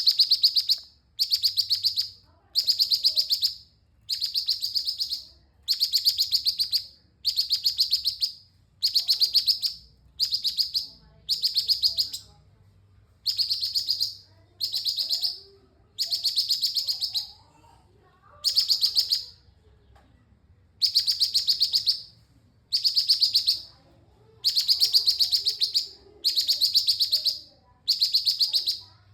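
Cucak cungkok bulbul singing vigorously: short bursts of rapid, high chattering notes, each about a second long, repeated roughly every two seconds with a slightly longer pause past the middle.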